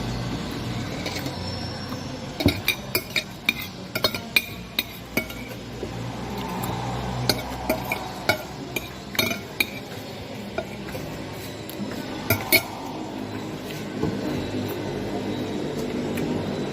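Eating utensils clinking and scraping against a dish, in scattered clusters of sharp clicks.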